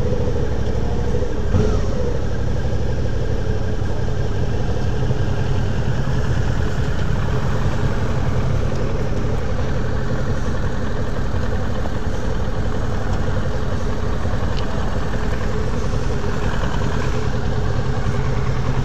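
Motorcycle engine idling steadily at an even, low pitch, with no revving.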